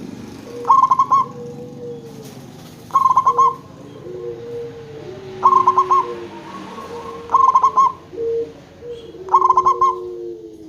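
Zebra dove (perkutut) cooing: five short bursts of rapid, rolling notes about two seconds apart, with fainter drawn-out lower notes between them.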